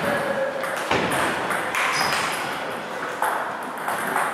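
Table tennis ball clicking sharply about once a second, each click ringing on in the reverberant hall.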